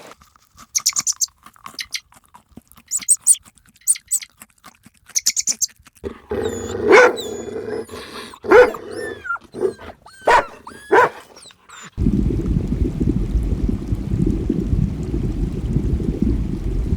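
A run of short animal-call clips: first rapid high chirping, then sharp dog-like barks and yelps with rising and falling cries about six seconds in, then a steady low rumbling noise from about twelve seconds in.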